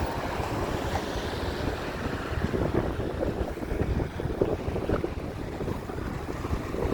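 Strong wind buffeting a microphone that has no windshield: an irregular low rumbling that surges and drops in uneven gusts, a little stronger in the second half.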